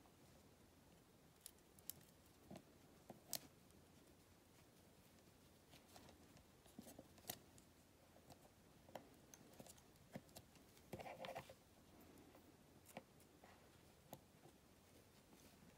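Near silence with faint, scattered small clicks and taps: fingers handling an iPhone 8 Plus display assembly and pressing its flex cable connectors back onto the logic board. A brief soft rustle about eleven seconds in.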